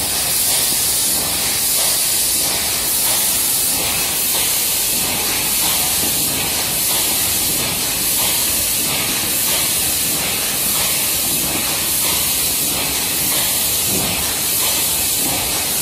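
Rotary sticker labeling line for oval bottles running: a steady hiss-like machine noise with a faint, evenly repeating pulse.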